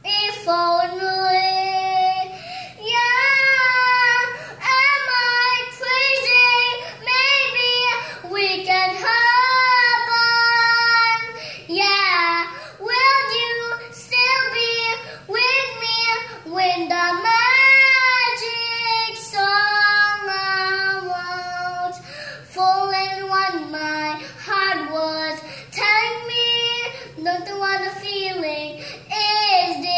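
A young girl singing a slow song in long, held phrases, her voice rising and falling between notes.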